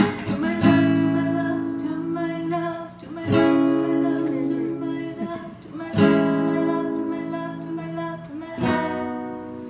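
Acoustic guitar playing slow strummed chords, a new chord about every two and a half seconds, each left to ring and fade.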